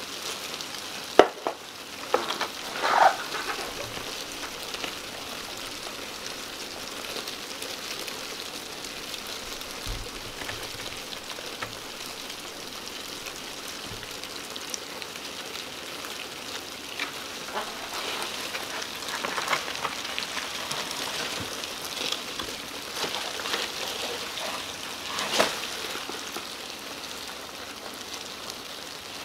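Dubia cockroaches crawling over cardboard egg crates and the plastic bin: a steady dry crackling and scratching rustle. A sharp knock comes about a second in, with louder scrapes shortly after and again near the end.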